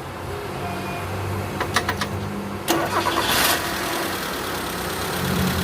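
2004 Mitsubishi Lancer engine being started: a few clicks, then the engine catches about three seconds in and settles into steady running. The engine has a misfire that is being diagnosed.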